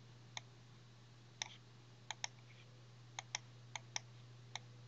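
Computer mouse clicking: about nine faint, sharp clicks, several in quick pairs, over a steady low electrical hum.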